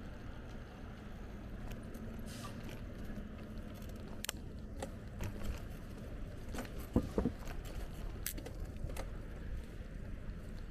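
A bicycle ride: a steady low rumble of tyres and wind on the microphone, with scattered small clicks and rattles from the bike. A couple of sharper knocks come about seven seconds in, and a faint steady hum sits under the first three seconds.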